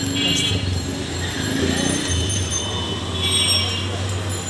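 Busy street noise: a steady low rumble of traffic, with short high-pitched ringing tones at the start and again about three seconds in.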